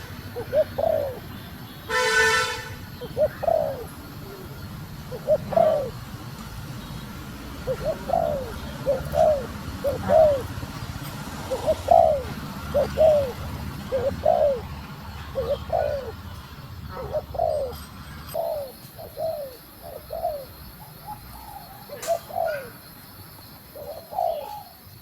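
Female spotted dove cooing: a long run of short, arched coos, one to two a second, often in pairs. A brief horn-like tone sounds about two seconds in.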